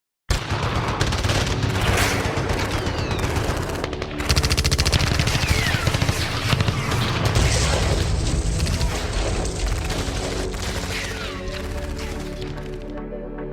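Rapid, dense automatic gunfire in long bursts, with a few falling whistles, over music. It starts abruptly out of silence and stops near the end, leaving only the music.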